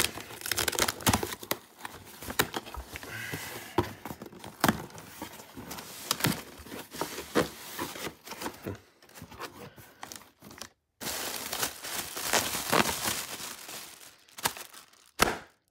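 Packing tape being peeled and torn off a cardboard box, then cardboard flaps and plastic air-pillow packaging crinkling and rustling as they are handled, with many irregular clicks and scrapes.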